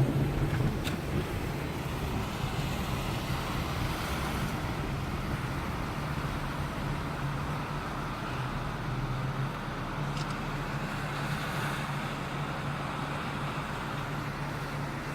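A vehicle engine running steadily with a low hum, under a constant wash of noise.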